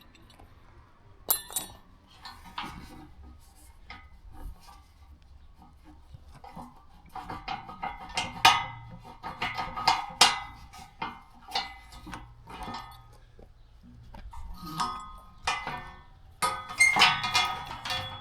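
Metal clinking and tapping of fittings and tools while sprayer boom plumbing is taken apart by hand. The clinks are irregular: a few scattered ones at first, then a busier run of sharp clinks with short ringing through the second half.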